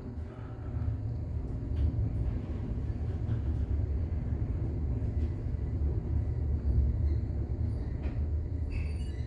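Low, steady rumble inside an Otis traction elevator car as it travels down. The rumble swells about a second in and eases off near the end as the car slows.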